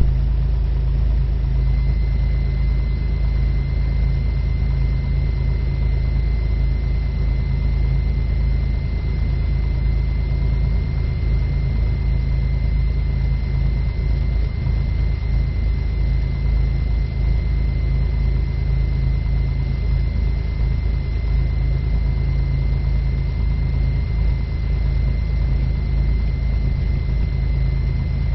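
Cessna 182 Skylane's piston engine running at low taxi power, a steady low drone heard in the cockpit. A thin, steady high whine comes in about a second and a half in.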